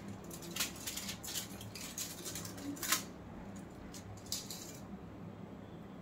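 Aluminium foil crinkling as it is peeled off a plastic tub of set ice cream: a quick run of short crackles in the first three seconds and one more a little after four seconds.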